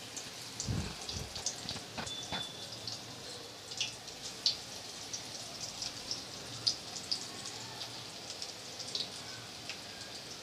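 Onion bhajis deep-frying in hot oil in a kadhai: steady sizzling with many small crisp pops and crackles. A soft low thump about a second in.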